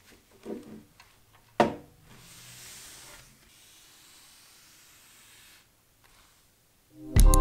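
Light rustling, then a single sharp click about one and a half seconds in, followed by a soft hiss that fades out. Music starts right at the end.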